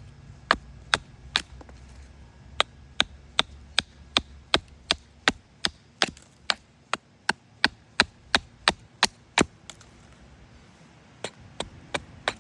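Hatchet chopping into a cherry-wood spoon blank in quick, even strokes, about two or three a second. The strokes break off briefly after the first three, and again for under two seconds near the end, then carry on.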